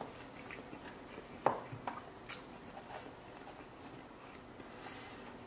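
A few light clicks and taps of a plastic food container being handled as sushi slices are set into it, the sharpest click about one and a half seconds in.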